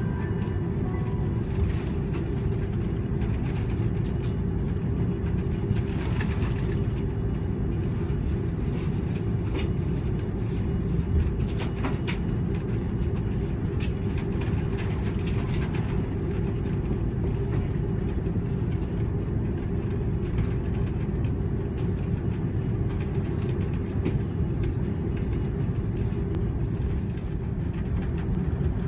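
Steady cabin rumble of an Airbus A330 taxiing, engines at low thrust and the airframe rolling over the taxiway, with a few light clicks and rattles.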